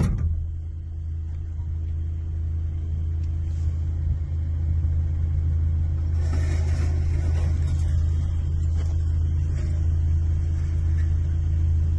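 Vehicle engine running with a steady low drone, heard from inside the cab. A sharp click comes right at the start.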